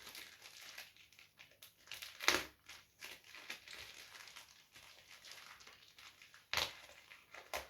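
A knife scratching and slicing at a package's tape and wrapping, with crinkling of the packaging as it is worked open, and two sharper scrapes, about two seconds in and near the end.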